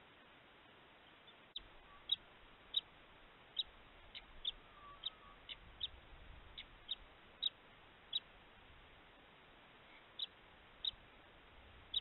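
Plumed whistling-duck giving a series of short, high whistles, roughly one or two a second and some in quick pairs, starting about a second and a half in.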